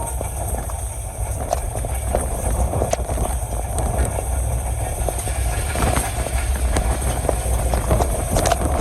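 Passenger train running along the track: a steady rumble with scattered clicks and knocks from the wheels and couplings, and wind buffeting the microphone.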